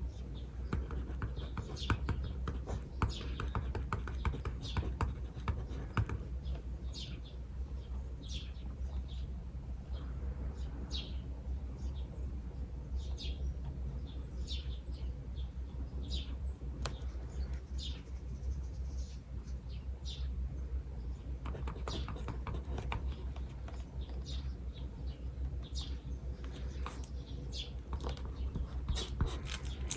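Small birds chirping in short, repeated downward-sliding calls while writing scratches on paper in quick strokes; the writing is busiest in the first few seconds and again in the last third.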